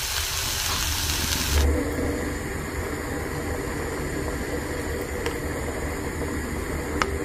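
A steady low hum with a hiss over it, in a kitchen where a pot is cooking on the stove. The hiss drops off sharply about a second and a half in, and there is a single faint click near the end.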